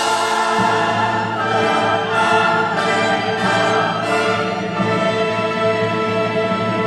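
Orchestral intro music with long, held chords.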